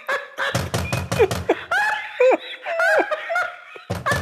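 A man laughing wildly, broken twice by a stretch of repeated heavy banging on a door, once about half a second in and again near the end.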